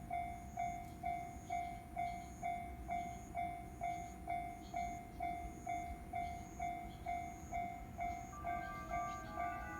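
Japanese railway level-crossing alarm ringing its repeated electronic 'kan-kan' tone, about two strikes a second, over a low rumble. Near the end a second, higher set of tones joins in.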